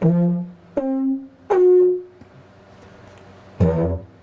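Hemp didgeridoo playing three short trumpet-like horn toots, each one higher in pitch than the last. About three and a half seconds in, a short lower drone blast starts the run again.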